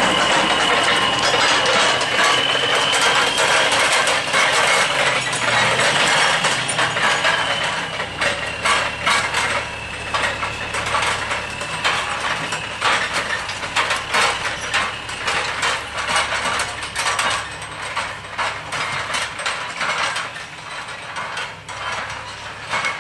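Rapid mechanical clattering and ticking, like gears or a ratchet mechanism running, with a high whine over it for the first several seconds that then fades out; the clatter grows gradually quieter.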